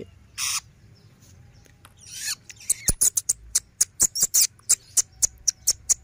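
Young long-tailed shrike giving a fast run of short, sharp, high-pitched chirps, about three or four a second, starting a little under three seconds in. A brief noise comes about half a second in.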